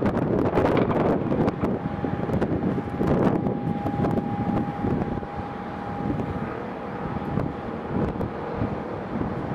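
Wind buffeting the microphone in uneven gusts, over a faint steady whine from the landing Boeing 777-300ER's jet engines.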